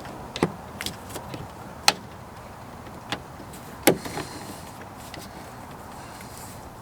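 Scattered sharp clicks and knocks from a car's rear door trim panel and its fittings being handled and pressed into place, about five in all, the loudest about two and four seconds in.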